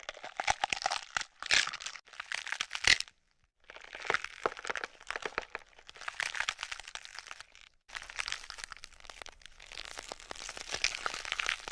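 Wet spitting and splattering sound effect: long runs of crackly, clicking, squelchy noise, broken by a short silence about three seconds in and a brief pause near the middle.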